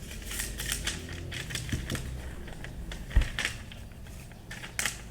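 Irregular clicks, taps and rustles of packaging and small parts being handled as a parcel is unpacked, with one heavier thump about three seconds in.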